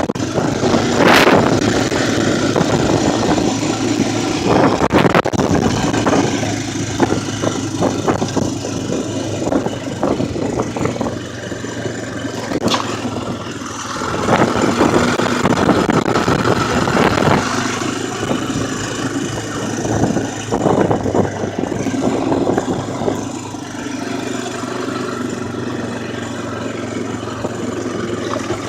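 ATV engine running while riding over rough ground, its loudness swelling and easing, with a few sharp knocks along the way.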